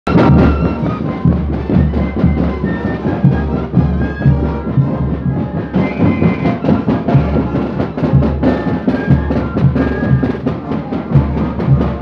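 Festive band music for dancing: a steady bass-drum beat with a melody carried over it.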